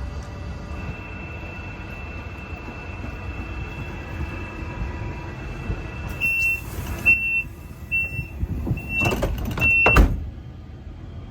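A train's sliding door: a steady electronic tone that breaks into about five short beeps, with hissing, ending in a loud thump as the door shuts, over the rumble of the moving train.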